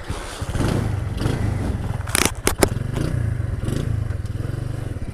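Small motorcycle engine running at low speed with a steady pulsing hum. A few sharp knocks and rattles about two seconds in, as the bike rides over a broken, uneven lane.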